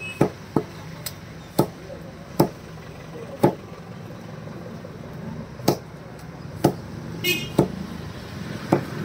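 Butcher's cleaver chopping raw chicken on a wooden chopping block: about ten sharp chops at irregular intervals.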